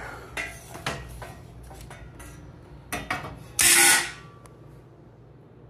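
Clicks and knocks of a panel and screws being handled on a metal TV stand frame as the panel is turned round, with one loud half-second rasping burst about three and a half seconds in.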